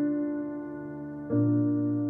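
Piano music playing slow, held chords, with a new chord struck a little over a second in.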